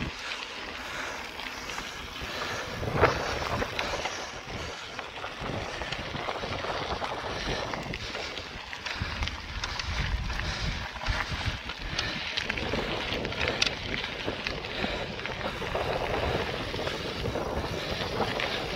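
Wind buffeting the microphone over the rolling noise of a mountain bike ridden along a dirt track, with one sharp knock about three seconds in.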